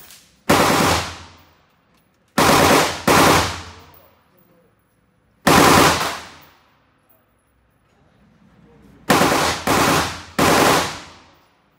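Seven gunshots ringing out in an indoor shooting range, each trailing off in a long echo. Two come in quick pairs about half a second apart, too fast for a bolt or side-lever air rifle, typical of semi-automatic fire.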